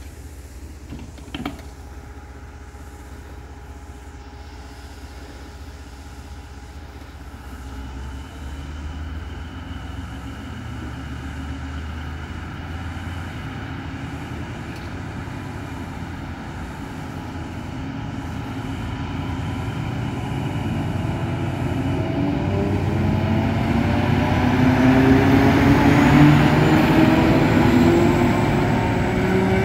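Czech Railways class 750 diesel locomotive propelling its push-pull train away: coaches roll past over the rails while the locomotive's engine grows steadily louder, its pitch climbing as it powers up, and it is loudest as the locomotive draws level near the end. A short knock sounds about a second in.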